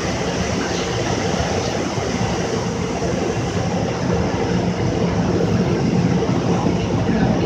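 Automatic car wash machinery running, most likely the overhead dryer blowers: a steady loud roar with a low hum underneath, growing a little louder in the second half.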